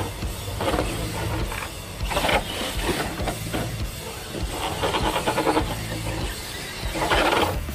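A 1:10 scale RC 4x4 crawler truck's electric motor and gears whirring in several short throttle bursts as it is driven over dirt and rocks, over a steady low music bed.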